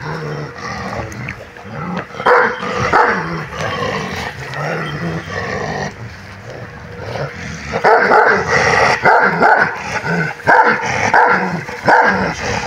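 Large Kangal shepherd dogs barking at each other in short bursts, with a louder, rapid run of barks about three a second through the last few seconds.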